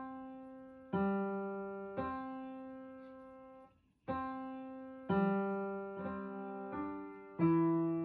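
Background music: a keyboard playing slow struck notes, about one a second, each ringing out and fading, with a brief pause near the middle.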